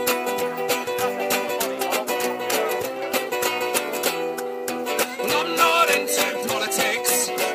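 Acoustic folk music: two acoustic guitars strummed to a steady beat of hand strikes on a cajon. A higher, wavering melody line comes in about five seconds in.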